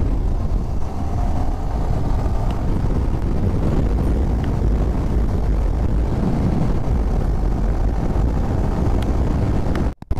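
Wind rush over the microphone and the 155 cc single-cylinder engine of a Yamaha R15 V4 motorcycle while riding, a steady low rumble. It cuts out briefly near the end.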